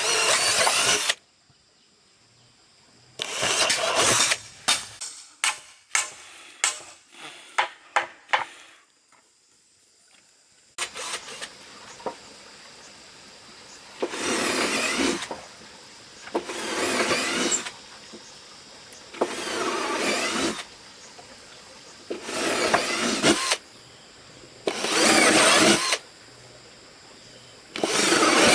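Power drill working into wood in short repeated runs, about every two and a half seconds in the second half, with a quick series of sharp knocks in the middle.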